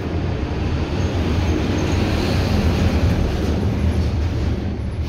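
Corded electric hair clippers buzzing steadily as they cut through long hair, a little louder about two seconds in.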